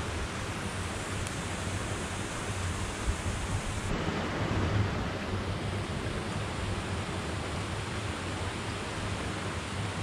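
Small stream rushing over stones, a steady even hiss of running water.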